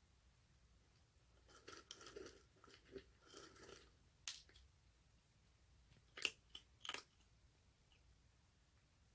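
Baby kitten eating noisily. A run of soft chewing sounds comes first, then four short, sharp crunches.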